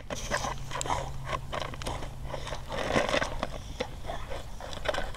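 Two dogs tussling over a plastic frisbee on gravel: teeth clacking and scraping on the disc and paws crunching the gravel, a quick run of clicks and scuffs that is loudest about three seconds in.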